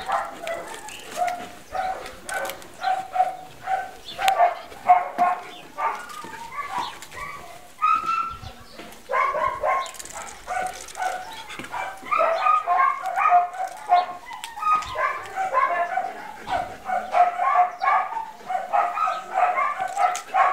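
A small dog yipping and whining in quick runs of short, high calls, several a second, with brief pauses between runs.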